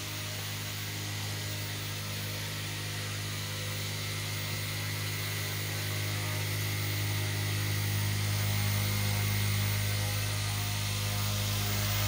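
920KV brushless drone motor spinning its propeller on the aeropendulum arm: a steady, even hum with overtones and a hiss above it, growing a little louder toward the end.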